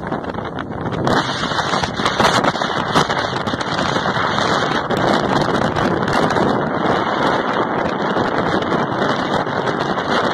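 Storm wind rushing over the microphone and buffeting it, with many short crackles as gusts hit it.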